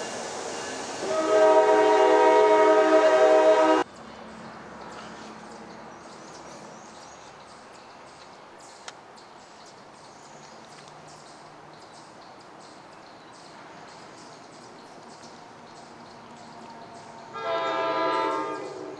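Train horn blowing a long blast of several notes sounding together, starting about a second in and cutting off abruptly about four seconds in. Then quiet ambience, and a second, shorter horn blast near the end.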